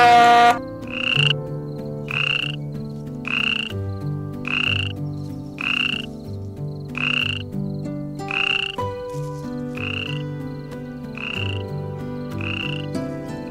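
A drawn-out, strongly pitched call cuts off about half a second in. It is followed by a short animal call repeated steadily about every 1.2 seconds, eleven times, each call brief and rasping.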